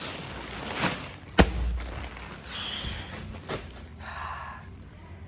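Handling noise as the phone camera is moved about, rustling with a few clicks and one sharp thump about a second and a half in.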